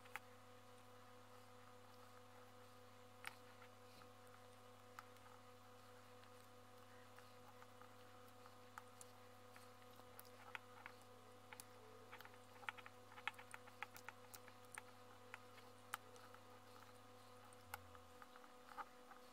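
Carving knife taking small cuts from a butternut wood pen blank: faint, scattered clicks and scrapes, coming more often in the second half, over a steady low electrical hum.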